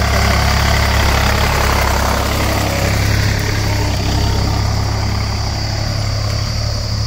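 A tractor's diesel engine runs steadily as it hauls a trolley loaded with soil. The low engine hum continues throughout, and the louder clatter eases after about three seconds as the tractor pulls away.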